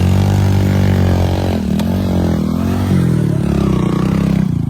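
Heavy vehicle's engine running hard under load as it works its way up a dirt ramp. The pitch wavers and dips in the middle, then steadies, and the sound cuts off suddenly at the end.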